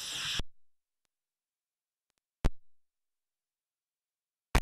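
Electrical hiss and buzz on an audio line, which the hosts put down to an ungrounded connection, cuts off abruptly about half a second in, leaving dead silence. A single sharp click, like a cable connector being plugged or unplugged, comes about two and a half seconds in, and another pop near the end.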